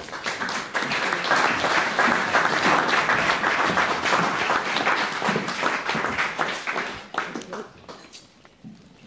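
Room of people applauding, a dense patter of many hands clapping that dies away about seven seconds in.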